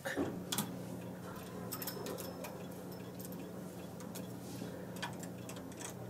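A few light, scattered clicks of metal knitting-machine needles and a hand transfer tool on the needle bed as stitches are moved by hand, over a faint steady hum.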